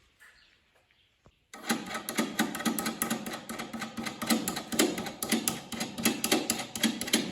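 A power tool or hand tool at work on wood and hardware: a single click, then, about a second and a half in, a dense run of rapid, irregular clicking and rattling over a steady low hum.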